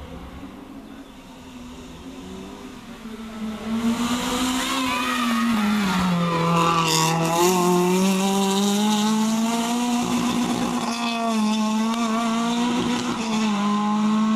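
Honda Civic rally car's engine coming up the road and getting loud about four seconds in, revving hard. Its pitch drops as it slows for the hairpin, then climbs and holds high as it accelerates through, with a short burst of noise about halfway.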